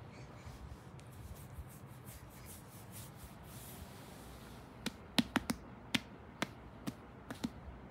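A quiet stretch, then about ten sharp, irregularly spaced clicks over the last three seconds.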